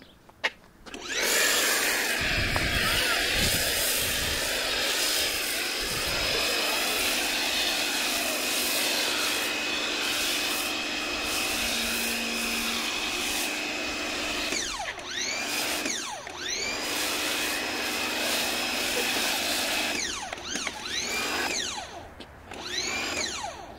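Pressure washer running and spraying: a steady motor whine over a loud spray hiss that starts about a second in. Near the middle and again near the end the hiss breaks off briefly several times and sweeps up and down in pitch.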